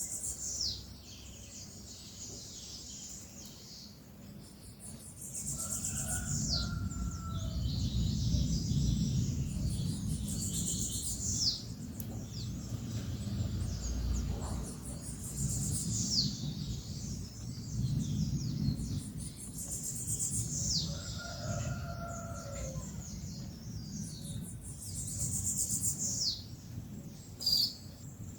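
A songbird singing short high phrases, each ending in a quick falling sweep, repeated about every five seconds over a low background rumble.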